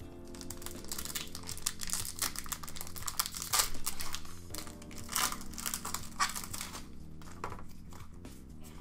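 Foil Pokémon booster pack wrapper crinkling as it is torn open, with a few louder crackles in the middle.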